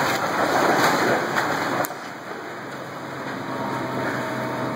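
Masonry tower collapsing under an excavator's push: a dense crashing rush of falling rubble for about two seconds, which drops off suddenly to quieter steady noise.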